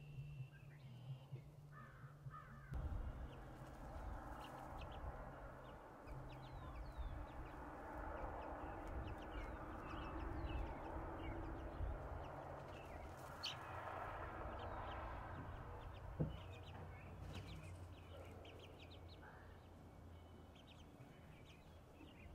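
Three-week-old chicks peeping in short high chirps now and then, over a faint background noise that swells from about three seconds in and fades near the end.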